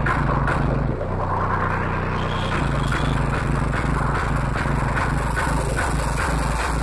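Loud electronic dance music over a big sound system, heard through a phone microphone that distorts the bass, with a steady beat about twice a second. About a second in, the deepest bass drops out for a second and a half, then comes back.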